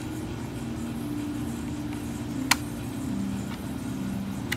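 A sharp click from a button being pressed on a plastic digital alarm clock about halfway through, and a lighter click near the end, over a low drone of sustained tones that step in pitch.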